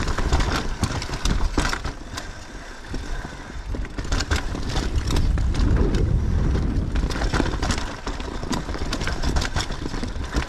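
Mountain bike descending a rooty, rocky trail: tyres rumbling over dirt, rocks and roots with a run of rattles and knocks from the bike. Around the middle there is a louder, steadier rumble as the tyres roll across a wooden boardwalk.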